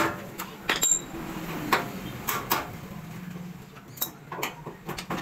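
Scattered sharp metal clinks and knocks of an adjustable wrench being handled on concrete and against a bicycle wheel's rim and spokes, one clink ringing briefly about a second in and a quick cluster near the end.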